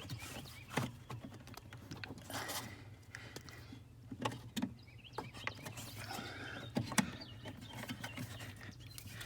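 Irregular clicks, knocks and rustles of hands fumbling under a Jeep's dashboard to fit a plug-in turn-signal flasher into its socket, over a low steady hum.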